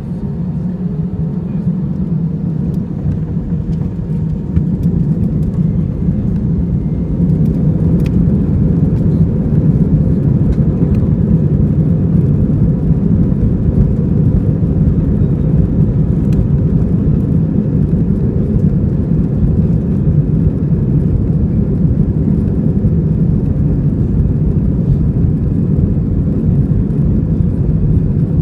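Airbus A320-214's twin CFM56 engines heard from inside the cabin, rising to takeoff thrust over the first several seconds, then running steadily loud and low as the airliner rolls down the runway for takeoff.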